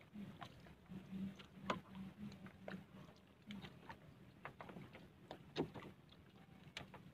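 Handline being pulled in hand over hand and handled in a small boat: light, irregular clicks and taps of line and hands, with a faint low hum that comes and goes, stronger in the first half.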